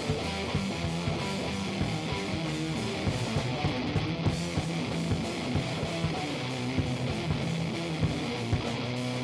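Band music: electric guitar playing over a steady drum beat.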